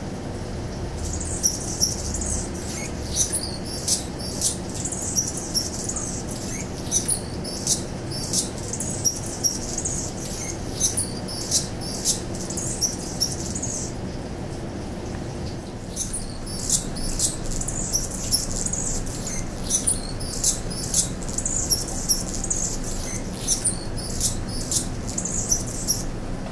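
Male Anna's hummingbird singing: two long bouts of thin, very high, rapidly repeated notes with sharp squeaks mixed in, the first lasting about thirteen seconds and the second starting after a pause of about two seconds. This male's song carries two extra high-pitched squeaks.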